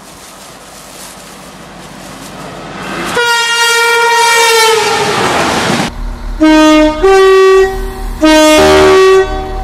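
Train approaching with a rising rumble, then a long single-tone horn blast at about three seconds whose pitch sags slightly as it fades. From about six seconds in, a two-tone train horn sounds twice, very loud, each time a low note followed by a higher one.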